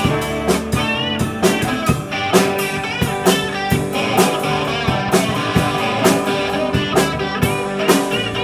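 Rock band playing an instrumental break: an electric guitar lead with bending, wavering notes over a steady drum beat.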